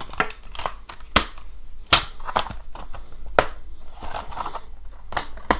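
Clear plastic Blu-ray cases being handled: a series of sharp plastic clicks and knocks, the loudest about two seconds in, with light rustling between them.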